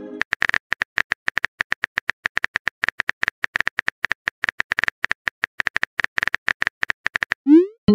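Simulated phone-keyboard typing sound effect: rapid, irregular key clicks that stop shortly before the end, followed by a short rising swoop of the message-send sound.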